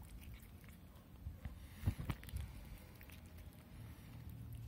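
A cat chewing a mouse: faint, scattered wet clicks and crunches, the loudest pair about two seconds in.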